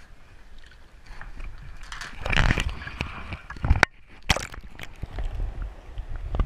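Water splashing and sloshing as a peacock bass held in a lip gripper is lowered into the water for release, with the loudest splash about two and a half seconds in; then sloshing and gurgling with the camera underwater beside the fish, plus a few sharp knocks.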